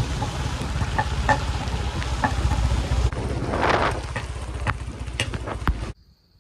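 Riding a motorcycle in the rain: wind buffeting the microphone over a low rumble, with scattered sharp ticks of raindrops, cutting off suddenly near the end into near quiet.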